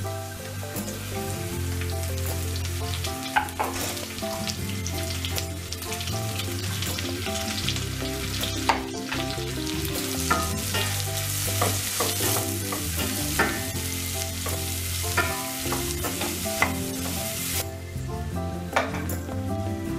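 Chopped onion and green peppers sizzling with browned meat in a stainless steel pot, stirred with a wooden spoon that clicks and knocks against the pot many times. The sizzling drops off sharply near the end.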